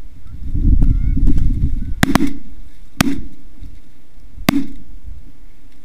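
Shotgun blasts at Canada geese coming in over decoys: a quick pair of shots about two seconds in, another about a second later, and a last one about a second and a half after that. A low rumble comes just before the shooting, and a goose honks faintly early on.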